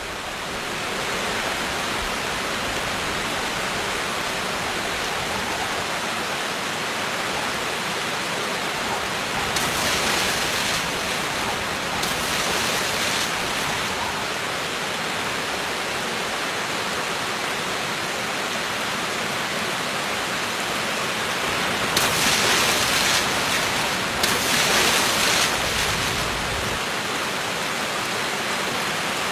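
Heavy tropical rain falling on the lake water: a steady hiss that swells louder twice, about ten seconds in and again about twenty-two seconds in.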